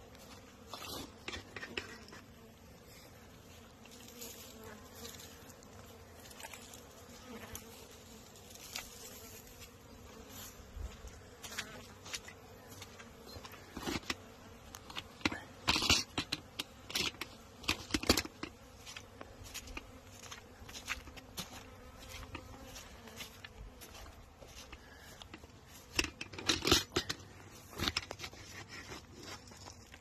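Honeybees buzzing steadily around their hives on a cleansing flight. Bursts of short, sharp noises come and go, loudest a little past the middle and again about three seconds before the end.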